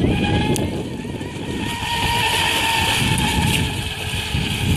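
RC boat's 2200kv 1515 brushless electric motor on 4S running flat out: a steady high whine that rises slightly in pitch, with the hiss of the hull and spray skimming the water swelling about halfway through, over a low rumble.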